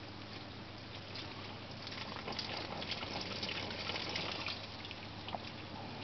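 Water pouring from a garden hose and splashing onto a soil bag and straw mulch, a steady spattering trickle. It grows louder about two seconds in and eases back a little after about four and a half seconds.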